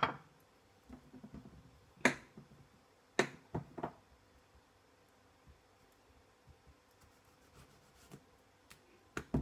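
Kitchen knife cutting a tomato, its blade knocking sharply on the cutting board: once about two seconds in, three quick knocks a second later, and once more near the end.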